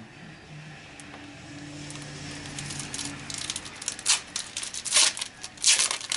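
Foil trading-card pack wrapper crinkling and tearing open in several sharp bursts, the loudest near the end.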